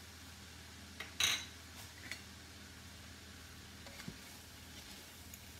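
Kitchen utensil sounds at an enamelled cast-iron pot: a brief sharp clatter about a second in, then a few lighter knocks and scrapes as a wooden spatula stirs a vegetable mixture.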